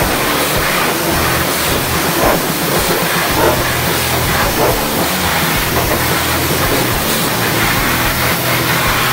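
High-pressure washer jet spraying water against a truck's metal fuel tank, rinsing off cleaning foam: a steady loud hiss of spray, with a low hum underneath.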